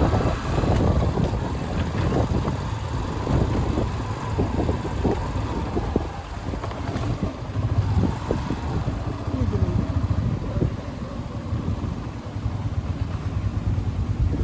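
Motorcycle running while being ridden along a road, with steady low rumbling noise.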